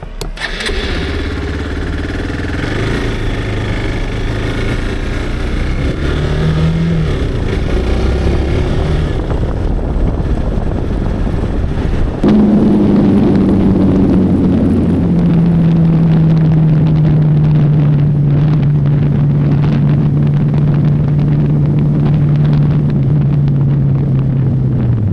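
Motorcycle engine under way on the road, its pitch changing through the first half as it picks up speed; about twelve seconds in it gets suddenly louder and then settles into a steady engine note at cruising speed.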